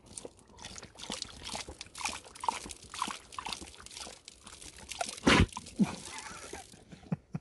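A malamute lapping water from the flip-out trough of a plastic travel water bottle, with water sloshing in the bottle. There is a louder knock about five seconds in.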